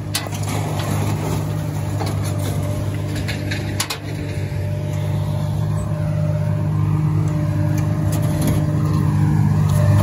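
A vehicle engine idling steadily, with a short metallic clatter about four seconds in.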